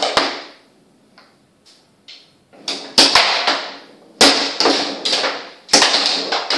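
Foosball table in play: sharp knocks and clacks as the plastic players strike the ball and the ball and rods bang against the table. There are about four loud hits, with a quiet stretch holding only faint clicks between the first and second.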